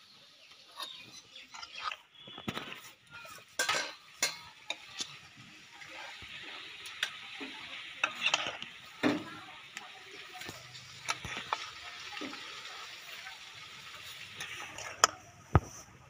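Metal spatula scraping and knocking around an aluminium karahi as thick jackfruit curry is scooped out and dropped into a stainless steel bowl, with a steady scraping hiss through the middle and scattered clinks of metal on metal. Two sharp clinks near the end.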